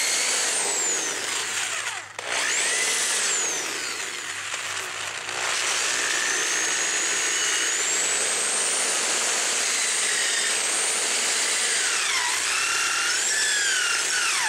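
Handheld electric drill boring a hole into the end of a dry birch handle. The motor whine rises and falls in pitch as the trigger is eased and pressed, with a short stop about two seconds in and a wavering dip near the end.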